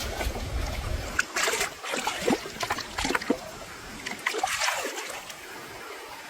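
Water splashing and sloshing in a run of short bursts, over a low rumble that fades after the first second.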